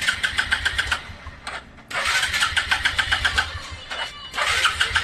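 Hero Glamour motorcycle's single-cylinder engine being cranked on its electric self-starter in three short bursts of rapid, even chugging, with short pauses between. It turns over without catching, a sign that fuel has not yet filled the freshly cleaned carburetor.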